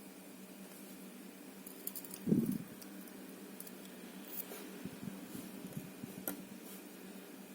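Small metal lock parts and tools being handled while a padlock core is reassembled: scattered light ticks and clicks, with one dull knock about two seconds in.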